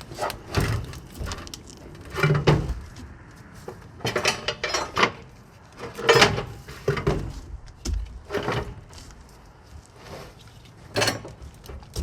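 Irregular metallic clanks, knocks and scrapes, about a dozen, as truck batteries and their metal hold-down bracket are handled in the battery box.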